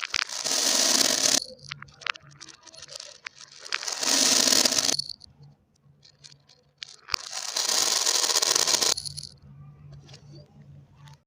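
Marbles rolling along a marble-run track: three loud rolling runs, each a second or so long, with sharp clicks of marbles knocking against each other and the track between them.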